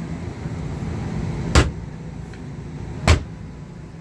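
Two sharp knocks about a second and a half apart from a camper's overhead storage cabinet door being handled, over a steady low hum.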